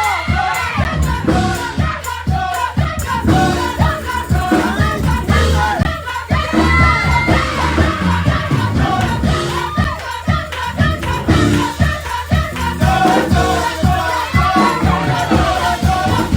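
Choir singing gospel-style praise music over a band with a heavy bass line and drums, loud and continuous.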